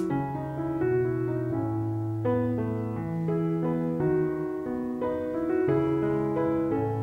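Background piano music: a slow melody of held notes over low chords.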